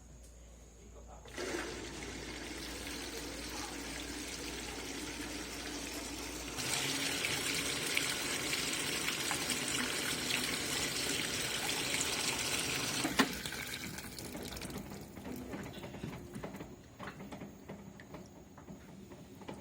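Water rushing into an LG 18 kg washing machine. It gets louder about six seconds in and cuts off sharply with a click about thirteen seconds in.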